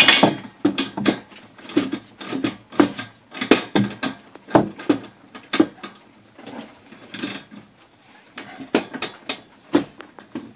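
Irregular clicks, knocks and clanks of hand work on a garage door's steel vertical track and roller bracket, with a sharp knock at the very start.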